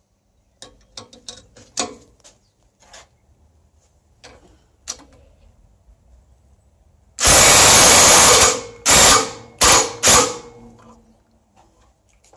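Impact driver hammering on the bolt of a rivnut setting tool, setting a rivnut in a square steel tube: one run of about a second and a half, then three short bursts. Before it, light metal clicks and taps as the tool is fitted into the hole.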